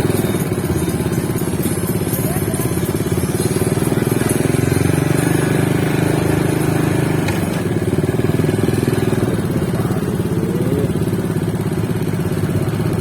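Motorcycle engine running close by, a steady, fast-firing drone whose pitch shifts a little about halfway through.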